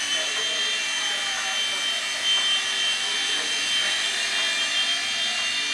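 Blade mSR micro RC helicopter hovering and flying, its small electric motors and rotors making a steady high-pitched whine that wavers slightly in pitch as the throttle changes.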